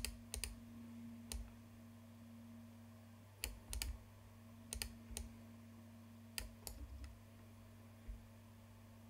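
Computer mouse button clicks, about a dozen at irregular intervals and often in quick pairs, as control points are picked and dragged in CAD software. A faint steady electrical hum runs underneath.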